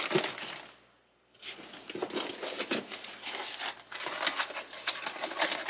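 Packaging rustling and crinkling as produce is handled and lifted out of a delivery box. It is a busy run of crackles and light clicks that breaks off for a moment about a second in.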